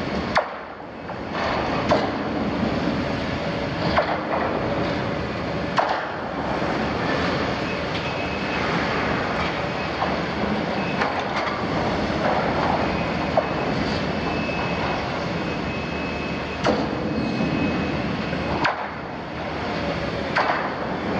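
Liebherr 974 demolition excavator's diesel engine running under load while its jaw attachment bites and tears the steel wall of an oil tank. Sharp metal cracks and clanks come every couple of seconds at first, then two more near the end, and a thin metallic squeal rises partway through.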